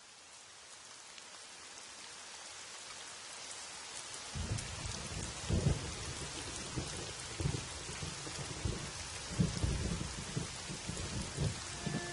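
Steady rain fading in, growing louder, joined about four seconds in by low, rolling rumbles of thunder.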